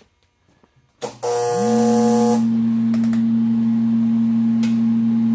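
A 2 kW RF plastic sealer starting a heating cycle. About a second in there is a click, then a loud, steady electrical hum sets in: a low tone, with a higher tone that rises briefly and then holds. A hiss lasts for about the first second and a half of the run, and a couple of faint clicks follow.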